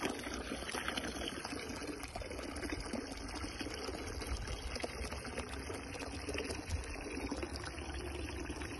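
Water running and trickling steadily, a light pouring splash with no let-up.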